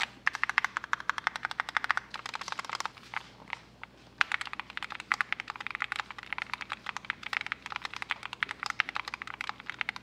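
Typing sound test on an Akko ACR Pro Alice Plus, a gasket-mounted custom mechanical keyboard with an Alice layout, fitted with modded switches and aftermarket keycaps. Fast, steady runs of keystrokes clack, with a brief lull about three and a half seconds in.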